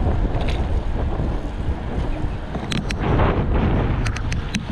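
Wind rumbling on the microphone, with a few short sharp clicks in the second half.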